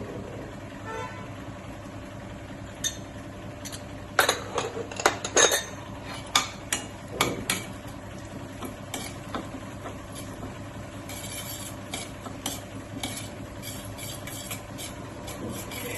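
Metal spoon stirring in a cooking pan, clinking and scraping against it. A run of sharp clinks comes between about four and seven and a half seconds in, with scattered lighter ones after.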